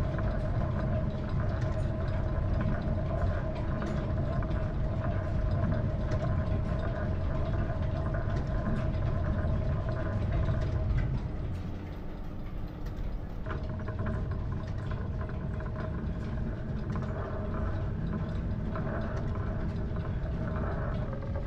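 Belt-driven Drummond lathe running at a reduced speed while a hand-ground square-threading tool cuts an internal thread in a bronze nut: a steady mechanical hum with a held tone over a low rumble. About eleven seconds in the sound dips, and its tone changes a couple of seconds later.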